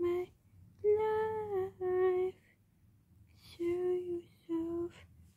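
A lone high female voice humming a slow wordless melody with no accompaniment: five held notes in two short phrases, with a pause of about a second in the middle.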